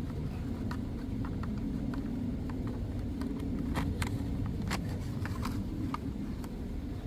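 Light, scattered clicks and taps of small parts being handled, over a steady low rumble.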